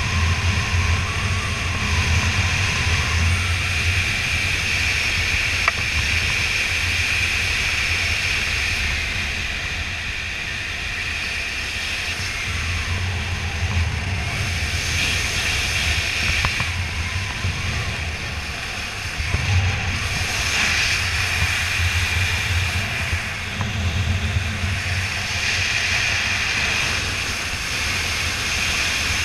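Wind rushing over a camera microphone during a parachute descent under an open canopy, a steady rush that swells and eases every few seconds.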